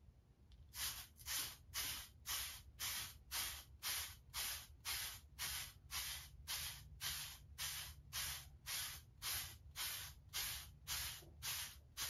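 Hard-bristle wave brush stroking through short waved hair, a brisk hiss about twice a second in a steady rhythm, starting about a second in.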